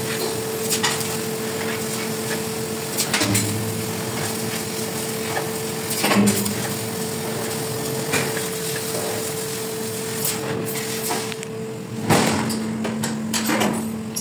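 CNC laser cutting machine running as it cuts steel plate: a steady hiss and hum with a constant tone, broken every few seconds by sharp clicks and knocks, the loudest about six and twelve seconds in.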